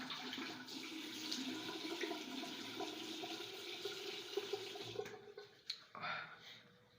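Water running from a tap into a sink, then shut off about five seconds in, followed by a few faint knocks.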